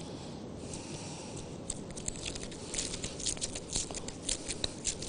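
Thin disposable plastic gloves crinkling as gloved hands work and rub soft dough: a quick, uneven run of short crackles that starts about a second and a half in.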